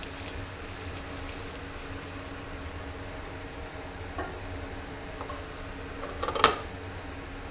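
Food sizzling in a frying pan, the crackle fading away over the first few seconds, then a spatula knocking against the pan, with a sharp clatter of the spatula on the pan about six and a half seconds in. A steady low hum runs underneath.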